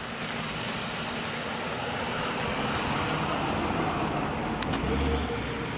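Steady rumble of a vehicle engine running, mixed with noisy wind on the microphone; a short click comes near the end.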